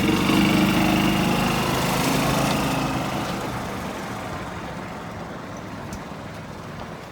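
Small engine of a kiddie train running, loud at first and then fading steadily as the train moves away.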